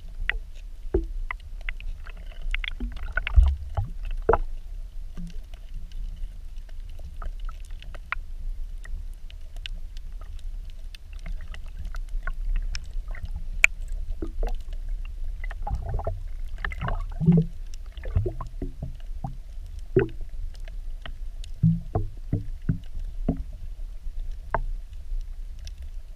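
Underwater sound picked up by an action camera held below the surface on a pole: a steady, muffled low rumble of moving water with scattered sharp clicks and crackles throughout.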